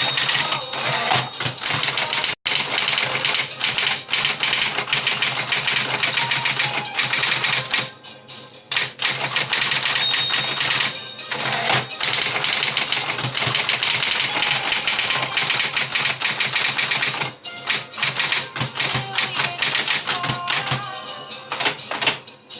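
Facit 1820 electromechanical office typewriter, freshly overhauled, being typed on in fast, dense runs of key strikes, with brief pauses about a third of the way in and again later. Background music runs faintly underneath.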